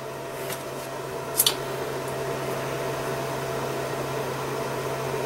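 A steady low hum, with a short sharp click about one and a half seconds in as hand crimpers squeeze an insulated fork terminal onto a stranded wire.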